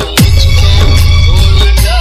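Loud DJ remix music with a heavy bass beat.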